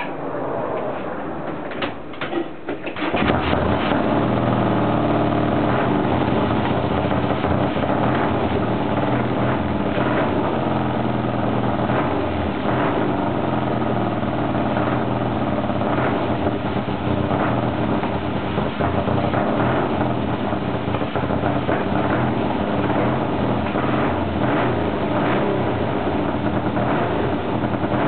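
Triton café racer's 650 cc parallel-twin engine kick-started: a few sharp strokes, then it catches about three seconds in and keeps running steadily. Its carburettors are not yet tuned, and it still needs tuning up.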